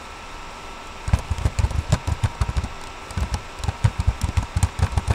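Rapid, irregular tapping, several light thumps and clicks a second, starting about a second in, over a faint steady hum.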